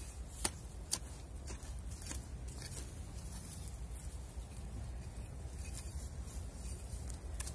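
Rosemary branches rustling and soil being handled as the branches are pressed by hand into a hole in the ground, with two sharp clicks about half a second apart near the start and a few fainter ticks after, over a steady low rumble.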